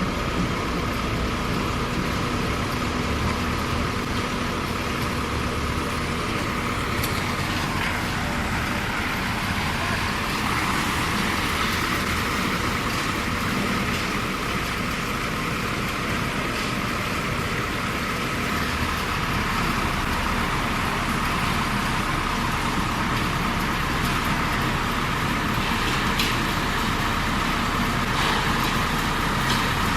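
ADDFORCE LT3500 self-loading concrete mixer running steadily under load, laden with about 9000 kg of concrete as it drives through mud. A steady whine sits over the engine noise and dips in pitch, then recovers, about eight seconds in.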